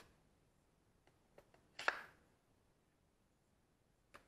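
A few light knocks and taps of objects being handled and set down on a wooden workbench, the loudest just under two seconds in with a short ring.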